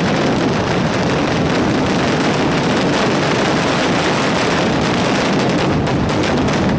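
Mascletà firecrackers detonating in a dense, unbroken barrage, the blasts so close together that they merge into one continuous din. This is the ground-shaking terremoto finale of the display.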